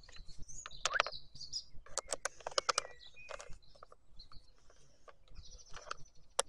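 Small birds chirping, over sharp clicks and taps from a screwdriver and the plastic housing of a Stihl MSA 120 C battery chainsaw being handled, a cluster of clicks two to three seconds in and a single sharp one near the end.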